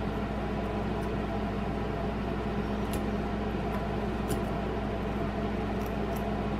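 A steady low hum with a few faint, light clicks of a metal pick touching the steel caseback and retaining ring of a Vostok Amphibia watch as the caseback is worked open.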